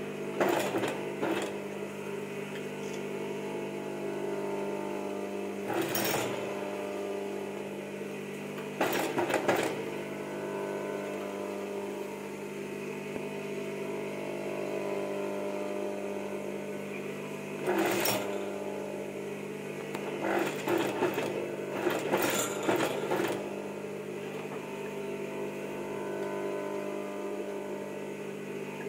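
Siruba industrial sewing machine stitching trim onto fabric in several short runs, with a steady motor hum between them.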